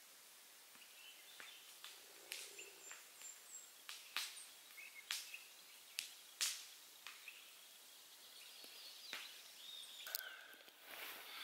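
Faint outdoor ambience with a few short, faint bird chirps, broken by several sharp clicks or taps that stand out above it.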